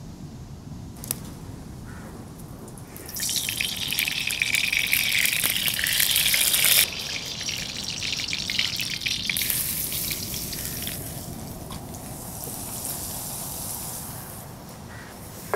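Hot oil sizzling in an iron wok over a wood fire as chopped aromatics fry. The sizzle starts suddenly about three seconds in and is loud for a few seconds. It drops abruptly to a quieter, steady sizzle that fades gradually.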